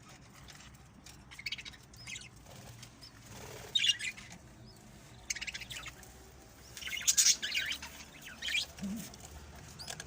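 Small cage birds chirping and fluttering their wings in short, scattered bursts; the loudest comes about seven seconds in.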